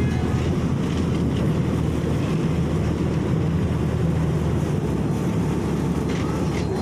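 A motorised sampan's engine idling with a steady low rumble.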